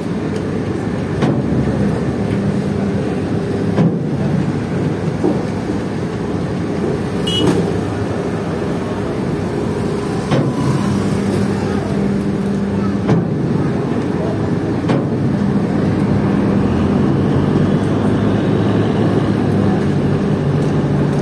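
Steady engine drone of a vehicle ferry and the cars and scooters driving across its deck, with a few sharp clanks now and then.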